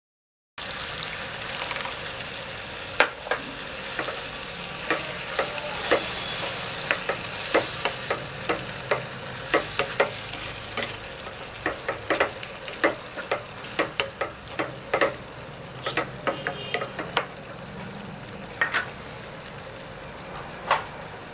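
Okra and prawn curry sizzling steadily in a nonstick frying pan with freshly poured tamarind juice. A wooden spatula stirs it, knocking and scraping against the pan in frequent, irregular sharp clicks that thin out near the end.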